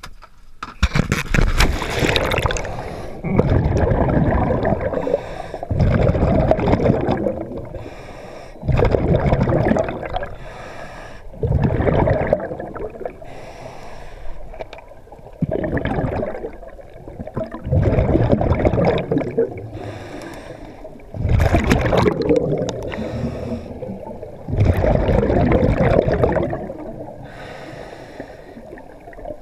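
A diver's own breathing underwater through a scuba regulator, heard from a head-mounted camera: a regular cycle of inhale hiss and gurgling exhaled bubbles about every three seconds. It opens with the rush and splash of entering the water.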